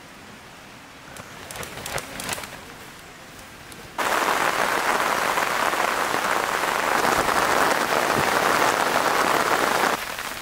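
Heavy rain falling steadily. It starts abruptly about four seconds in and drops to a lighter level near the end. Before it come a few soft rustles of tent fabric being handled.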